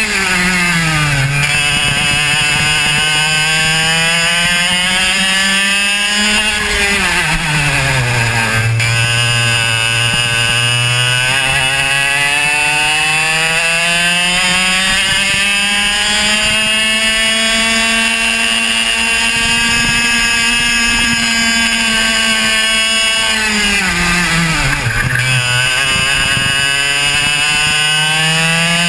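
Racing kart's two-stroke engine at full race pace. The revs climb steadily down the straights and drop sharply three times, about a second in, around eight seconds in and around twenty-five seconds in, as the kart brakes for corners, then wind back up.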